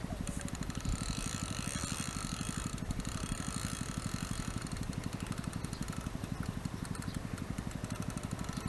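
An engine idling steadily, an even rapid low throb that holds the same rate throughout.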